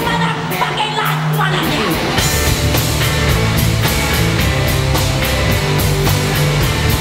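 Live rock band playing. For about the first two seconds the bass and drums drop out, leaving guitar, and then the full band comes back in with a steady drum beat.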